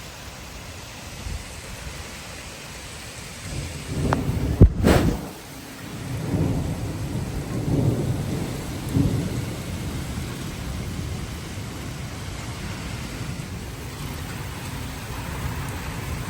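Thunder during a severe thunderstorm: a sharp crack about four and a half seconds in, followed by several deep rolling rumbles, over steady rain.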